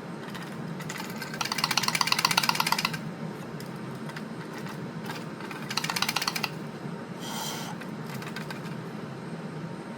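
A tool clicking rapidly in two runs, the first about a second and a half long and the second about half a second, followed by a short metallic clink, over a steady low hum.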